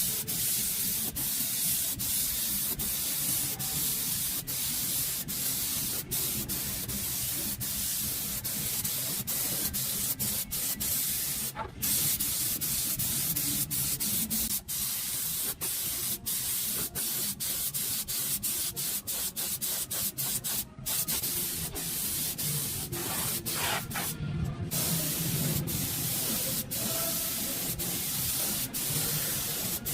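Steady hissing, rasping noise, strongest in the highs, broken by many brief gaps.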